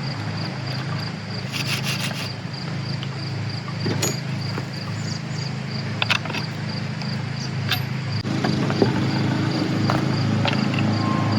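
Scattered metallic clicks and light scrapes of chainsaw bar and chain parts being handled, over a steady low machine hum and a faint pulsing high chirp.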